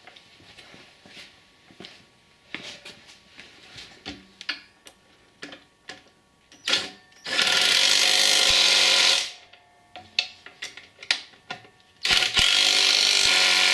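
Handheld cordless power driver running twice in steady bursts of about two seconds each, driving bolts home on an ATV's brake and foot-peg mounting, with light metal clinks of tools and parts in between.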